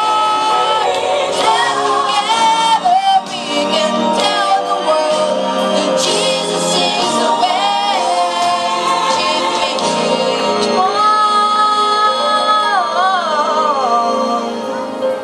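A church song sung with musical accompaniment, the voice holding long notes with vibrato at the start and again about eleven seconds in.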